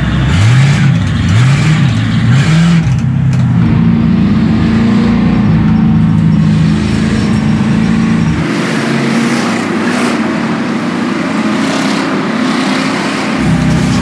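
Crown Victoria Police Interceptor V8 engine heard from inside the race car's cabin, revved up and down a few times, then running steadily as the pack rolls. About eight seconds in the deep engine sound drops away to a thinner, more distant sound of the cars, and the close cabin engine sound returns near the end.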